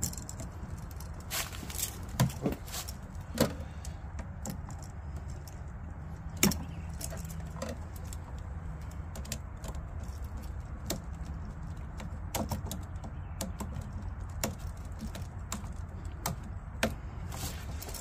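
Irregular clicks and light metallic clinks of a screwdriver working the screw terminals of a three-way light switch as wires are fastened, over a steady low background rumble.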